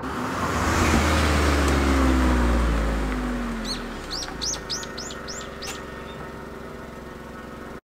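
Honda S660's 658 cc turbocharged three-cylinder engine as the car drives past and away, its note falling in pitch and fading over about four seconds. A bird then chirps about eight times in quick succession, and the sound cuts off suddenly near the end.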